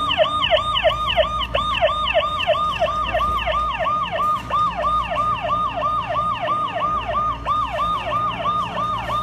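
Electronic siren alarm from the ERAP emergency response monitoring software, signalling that a robbery incident report has come in. It is a fast, steady run of falling sweeps, about three a second.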